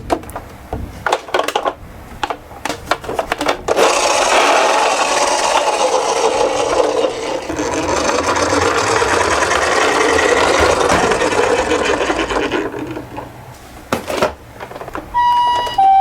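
Toy minicars rolling down a slope: a continuous rough rolling rumble for about nine seconds, with scattered clicks of the toys being handled before and after it. Near the end a toy ambulance's electronic two-tone siren starts, alternating high and low.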